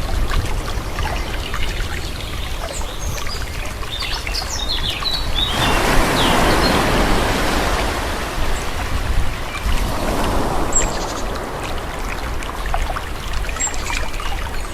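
Calm sea waves washing gently on a shore, one wave swelling up about five seconds in and easing off a few seconds later. Birds chirp briefly a few times early on.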